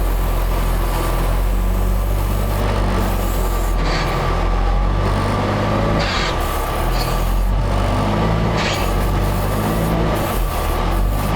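Tucker Sno-Cat engine running steadily under load as the tracked snowcat climbs a hill through deep snow, pushing a heavy load of snow on its blade, with a steady whine in the drivetrain. A few short hissing bursts come in the middle.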